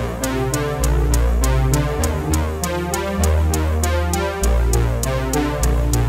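Background electronic music: synthesizer over a drum-machine beat with a deep bass line, the beat ticking about four times a second.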